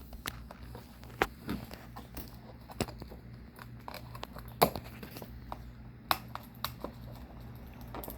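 Plastic wrapping being torn and crinkled off a sealed trading-card box, in scattered sharp crackles and clicks.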